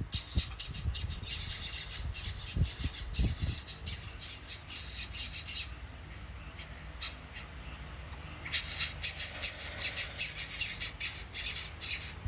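Nestling birds calling: rapid, high-pitched squawking chatter in two long bouts, separated by a few seconds of only scattered calls. These are typical begging calls of young being fed at the nest.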